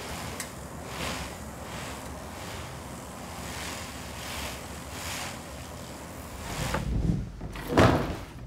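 Sheep shearing and fleece handling in a shearing shed: a run of swishing noises about once a second, with a louder thump near the end.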